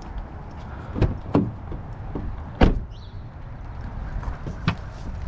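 A few hard knocks and thuds as salvaged items are tossed into a pickup truck bed: two close together about a second in, the loudest about two and a half seconds in, and a last one near the end, over a low steady rumble.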